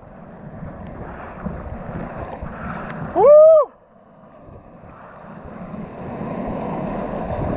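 Ocean surf and whitewater rushing around the camera in the shallows, growing louder in the second half. A short whoop rises and falls in pitch about three seconds in and is the loudest sound.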